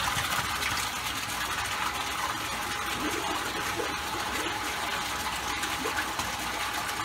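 Steady rush and splash of saltwater pouring from a PVC overflow drain pipe into an aquarium sump, churning into foam. The heavy flow comes from the higher-flow return pump setup after the plumbing upgrade.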